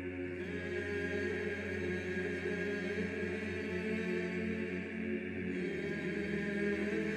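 Background music: voices chanting in long held notes over a steady low drone.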